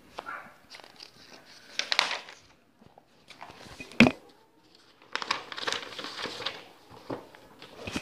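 Paper pages of a spiral-bound notebook being flipped and handled: irregular rustling, with a sharp click about halfway through and a longer rustle after it as a blank page is turned to.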